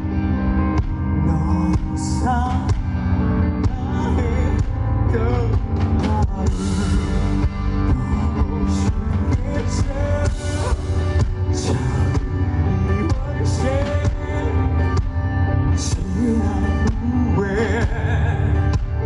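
Live band performance of a power ballad, with a male lead voice over drums, bass and keyboards, and cymbal crashes every second or two.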